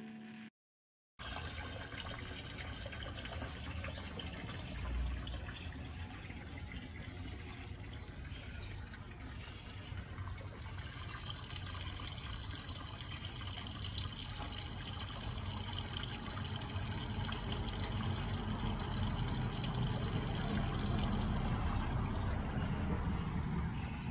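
A small stream of water from a rock-wall spout splashing into a garden pond, a steady trickle and splash starting about a second in, with a single thump about five seconds in.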